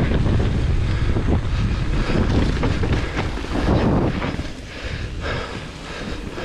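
Wind buffeting the action-camera microphone and hardtail mountain-bike tyres rolling fast over a muddy dirt trail, with scattered clicks and rattles from the bike. The noise eases about four seconds in as the trail flattens out toward the road.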